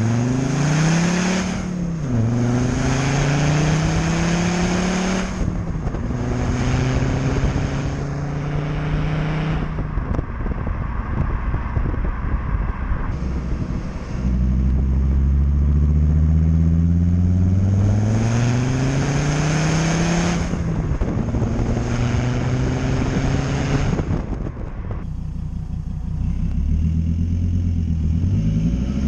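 Volvo V70's 2.4 D5 five-cylinder turbodiesel, with a custom stainless steel exhaust and K&N air filter, accelerating hard through the gears twice. The engine note rises, drops at each gear change and rises again, with a turbo whistle and intake rush over it, then eases back to steadier running between and after the runs.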